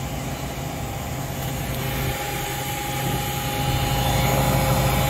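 The self-contained refrigerated case's condensing unit is running: the newly replaced hermetic compressor gives a steady hum with a faint steady whine above it, and grows louder about four seconds in. The compressor is running normally and pulling the case temperature down.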